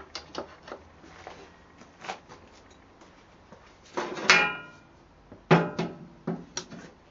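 Metal clinks and knocks as the rear wheel spindle of a motorcycle is worked out of the swingarm, with one louder clank about four seconds in that rings briefly, and another sharp knock a moment later.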